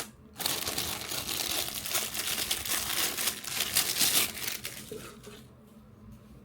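Packaging crinkling and rustling as it is handled and unwrapped, a dense crackle that dies away about five seconds in.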